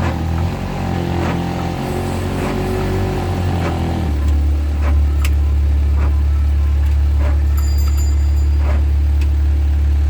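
A vehicle engine running steadily, with a low drone whose pitch drops to a deeper, stronger hum about four seconds in, and scattered light clicks and knocks over it.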